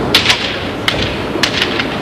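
Sharp cracks of bamboo shinai striking and clashing in kendo sparring, about six in quick, irregular succession, over a steady hiss.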